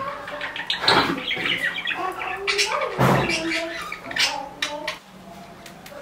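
Small cage birds chirping and calling: many quick chirps and gliding calls, with two louder bursts about one and three seconds in.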